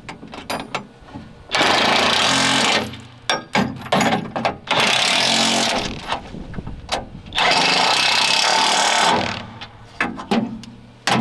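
Cordless impact driver hammering bolts home on a steel loader bucket, in three bursts of about a second each. Clicks and knocks of the hardware and tool come between the bursts.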